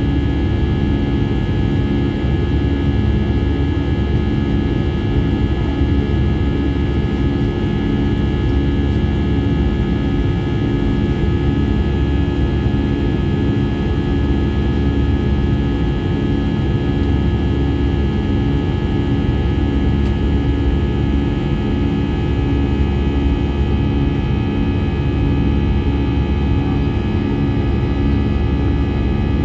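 Cabin noise of an Airbus A320-214 with CFM56 jet engines, heard from a window seat over the wing while climbing out: a steady rush with several fixed tones and a regular pulsing hum, about one and a half pulses a second.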